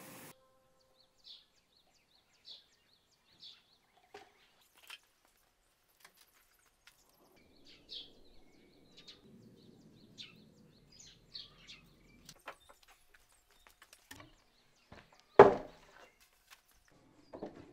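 Birds chirping now and then in the background while lumber is handled, with faint rustling and knocks. About fifteen seconds in there is one loud wooden thunk as a board or slab is set down on a wooden workbench.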